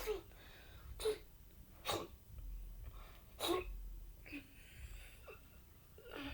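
A series of about seven short, sharp sounds, spaced roughly a second apart.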